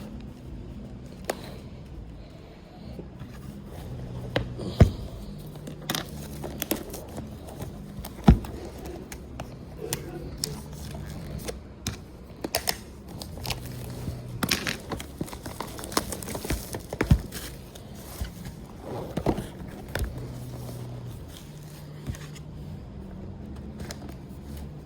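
Handling a power bank and its packaging: scattered taps, knocks and scrapes with some plastic crinkling, over a low steady background hum.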